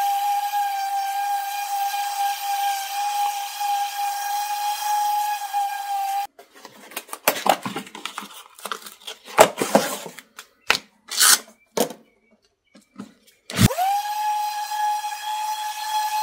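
DeWalt random orbital sander running with a steady high whine while sanding a walnut cutting board. It stops about six seconds in, followed by clicks and rustling as the sanding disc is changed, then starts again near the end, its whine rising quickly to speed.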